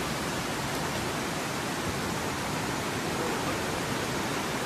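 Steady rushing noise of a river in flash flood, fast, churning floodwater running at an even level throughout.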